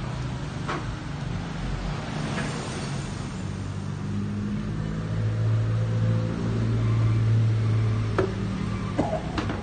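A motor vehicle's engine running with a steady low hum, growing louder in the middle and easing off near the end, with a few light knocks.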